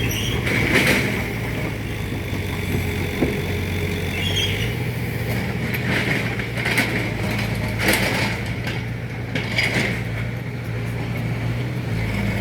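A motor vehicle or machine engine idling steadily, its low hum shifting pitch slightly a couple of times, with brief rasping sounds every second or so.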